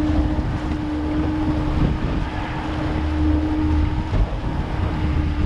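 Honda outboard motor running at a steady speed, pushing the boat along with one even hum over a low rumble. Water rushing past the hull and wind buffeting the microphone fill out the noise.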